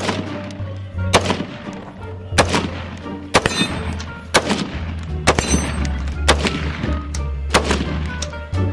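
Gunshots fired one after another, about once a second at uneven intervals, with music playing underneath.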